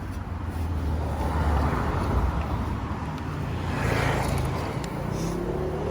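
Road traffic going by: a steady low rumble, with a vehicle swelling past about a second and a half in and another about four seconds in.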